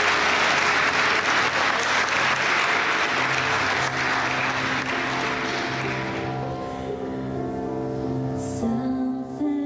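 Wedding guests applauding, the clapping dying away about six seconds in, over music of slow held notes that carries on alone afterwards.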